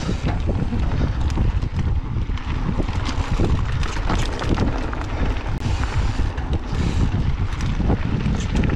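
Wind buffeting the microphone of a mountain bike rider's camera over a steady rumble of tyres on a rough dirt trail. Many short clicks and rattles come from the bike over bumps and stones.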